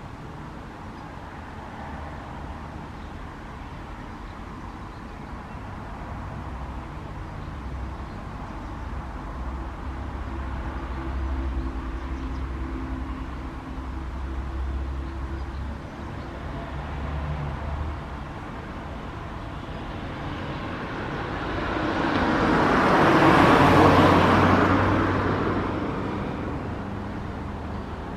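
Low steady hum and rumble of an Auer LS10 motor siren coasting down in its long run-out after a test, its rotor bearing damaged. A passing car swells and fades over it from about 21 to 27 seconds in, and is the loudest sound.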